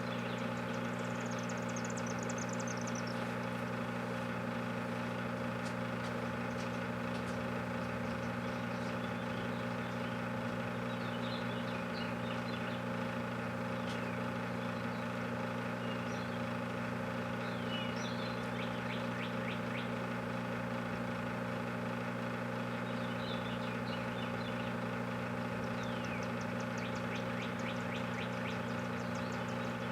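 Microwave oven running: a steady electrical hum with fan noise that does not change. Birds chirp now and then in the background.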